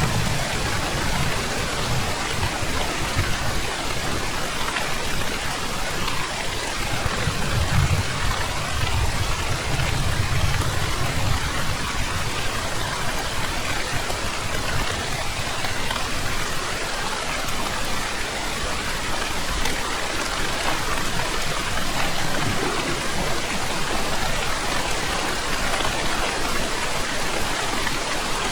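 Steady rain falling. A low rumble swells briefly about eight to eleven seconds in.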